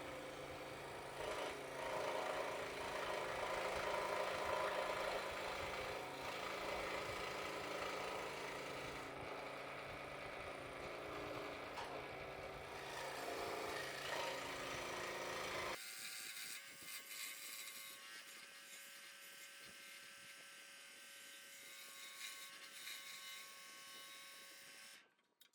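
Scroll saw running and cutting through thick wood, a steady motor hum under the blade's rasp. About two-thirds of the way in the low hum cuts off abruptly, and a quieter, thinner sound carries on before fading out right at the end.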